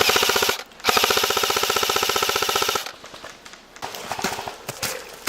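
Airsoft gun firing on full auto: a short burst, then a burst of about two seconds, followed near the end by scattered, fainter shots and short bursts.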